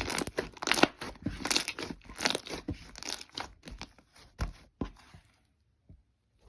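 Clear slime full of air bubbles being pressed and worked by hand: a dense run of irregular crackling pops, thinning after about three and a half seconds to a few separate pops.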